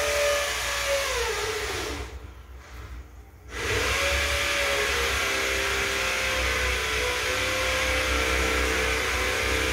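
Water splashing steadily into a koi tank, with a humming tone whose pitch wavers. Both drop away about two seconds in and return about a second and a half later.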